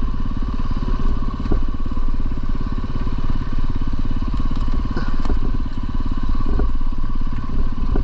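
450 cc single-cylinder four-stroke dirt bike engine running steadily at an even speed, with a few faint clicks over it.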